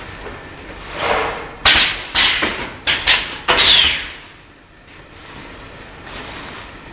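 Semi-automatic starch moulding candy line: a quick run of about six sharp knocks and scrapes between about one and four seconds in, the last with a short falling squeal, over a steady low machine noise.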